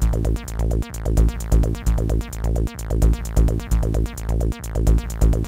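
Amiga demo soundtrack: sample-based electronic tracker music with a steady drum-machine beat over bass and synth notes.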